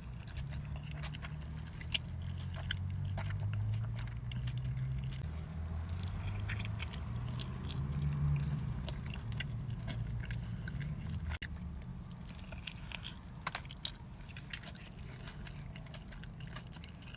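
Close-miked chewing and biting: wet mouth sounds with many small clicks and smacks as a mouthful of food is eaten. A low hum runs underneath and drops off about 11 seconds in.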